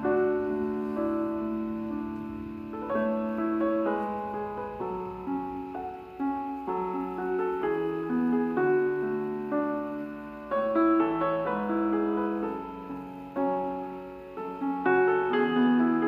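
Gentle solo piano background music, a slow melody over held chords.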